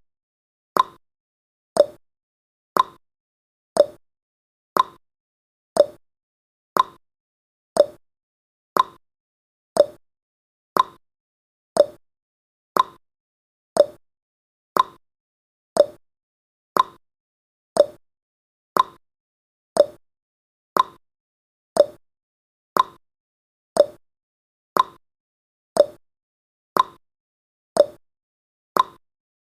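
Clock-style ticking sound effect counting off the seconds of a countdown timer: one short tick each second, alternating higher and lower like a tick-tock.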